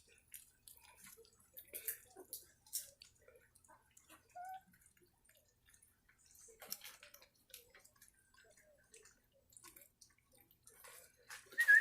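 Puppies licking and lapping soft food from a dish: faint, scattered wet clicks and smacks, with one brief squeak about four seconds in.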